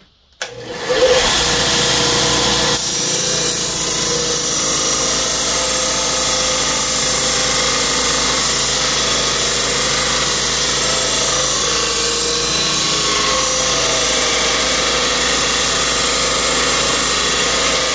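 Belt grinder starting about half a second in, then its abrasive belt grinding the steel of a tiller rotary blade steadily, shaping the knife's profile.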